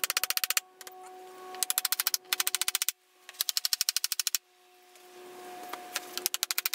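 A small hammer tapping nails rapidly and lightly into a pine strip laid on a hardboard panel, about ten quick taps a second, in short runs with pauses between.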